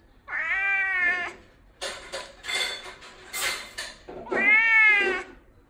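Tonkinese cat meowing twice, begging for a treat; each meow rises and then falls in pitch. Between the meows come about two seconds of scratchy, clattering noise.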